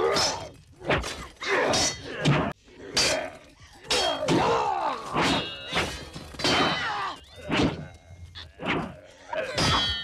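Fight sounds: repeated grunts and shouts mixed with blows, thuds and things crashing and breaking, coming in about nine separate loud bursts.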